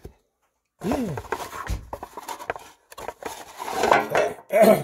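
A thick stack of trading cards handled and pulled out over a metal tin: rustling and clattering starting about a second in, with a dull bump partway through and a few short pitched sounds, one falling, mixed in.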